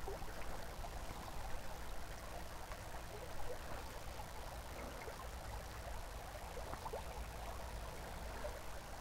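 Faint, steady rush of a small river flowing, with a low rumble underneath.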